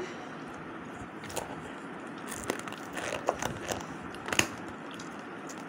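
A person eating rice by hand from a steel plate and chewing: a scatter of small clicks and smacks, the sharpest about four seconds in, over steady background noise.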